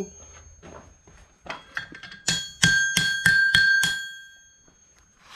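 Hammer striking a hot horseshoe on an anvil to flatten it. A few light taps come first, then about six hard ringing blows in quick succession, three or four a second. The anvil's ring fades out after the last blow.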